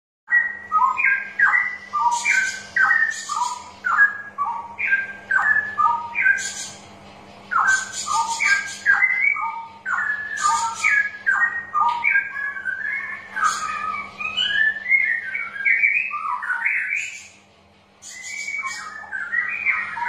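Straw-headed bulbul (cucak rowo) singing: a rapid run of short, loud whistled phrases with higher chattering notes over them. It turns into a more continuous warble in the second half, with a brief pause a couple of seconds before the end.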